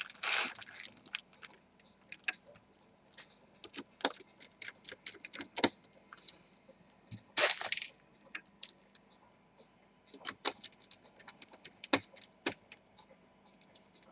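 Small screws and a screwdriver clicking and tapping against a laptop's display assembly as the screws are driven back in: scattered light clicks, with one louder, longer scraping noise about halfway through.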